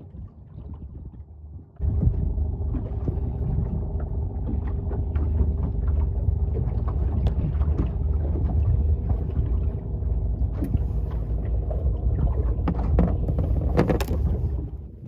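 Boat engine idling with a steady low rumble that comes in about two seconds in, with small clicks and rustles of hands handling fishing tackle close by and a louder rustle near the end.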